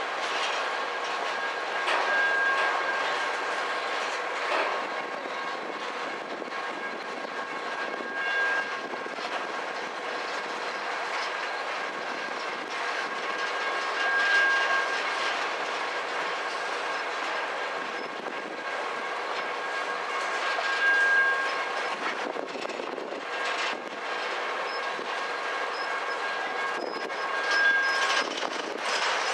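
Loaded covered hopper cars of a freight train rolling past, steel wheels rumbling and clacking over the rail joints. A thin steady ringing tone runs underneath and swells every six seconds or so.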